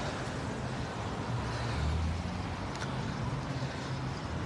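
Road traffic: a vehicle engine running with a steady low hum over general street noise, a little louder about two seconds in.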